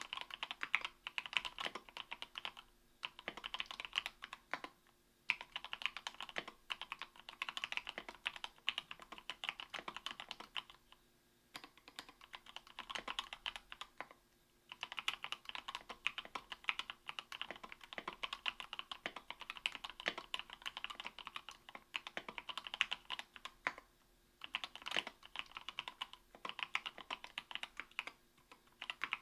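Typing on an Octagon V3 mechanical keyboard with an aluminium plate and lubed Gateron Milky Yellow 50 g linear switches, lubed with Krytox 205g0, and lubed stabilizers. Fast runs of key strokes go on for a few seconds at a time, with short breaks between them.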